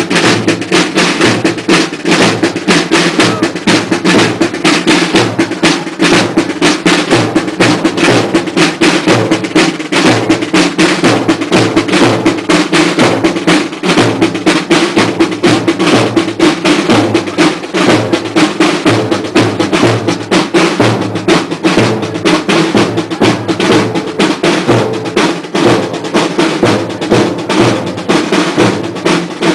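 Marching drum band of snare drums and bass drums playing a loud, steady processional beat with snare rolls over a regular bass-drum pulse.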